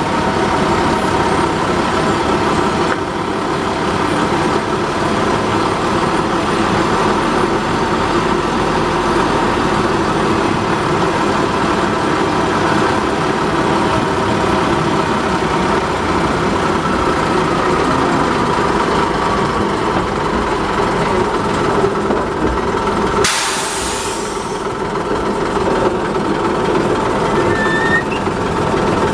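Small diesel shunting locomotive's engine running steadily as it travels along the line, with the rumble of its wheels on the rails. A brief hiss comes about three-quarters of the way through.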